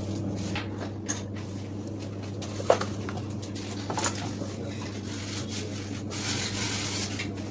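A steady low electrical hum, with a few small clicks and taps scattered through it and a short stretch of hiss near the end.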